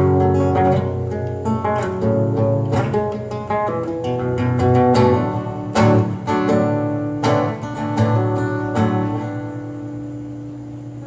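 Solo acoustic guitar strumming chords in the closing bars of a song, the playing growing quieter over the last few seconds as the final chords ring out.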